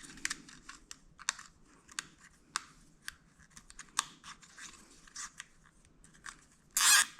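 Small, irregular plastic clicks of a zip tie being fed and handled around wiring, ending in a short, loud rasp as it is pulled through near the end.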